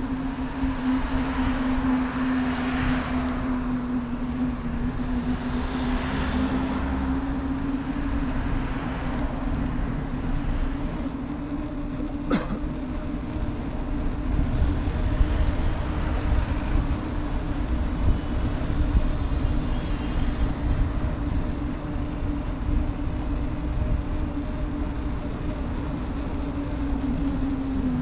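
City street traffic noise with a steady hum and a low rumble. There is one sharp click about twelve seconds in.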